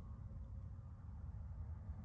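Quiet background room tone: a steady low rumble with no distinct sounds.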